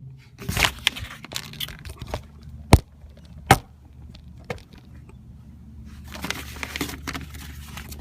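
A few sharp clicks and knocks, with rustling and scraping between them, from hands working at a car door and its newly fitted exterior handle. The two loudest knocks come about 3 and 3.5 seconds in, and a patch of scraping comes near the end.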